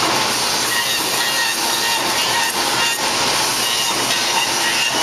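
Wooden-hanger woodworking machine and its dust extraction running steadily: a loud continuous hiss with faint whining tones coming and going.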